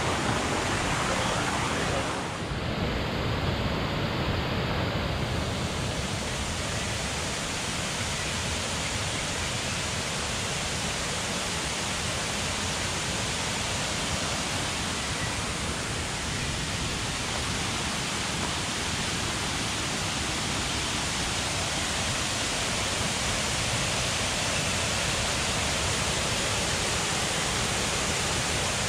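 Steady rushing of a waterfall, an even roar of water with no breaks.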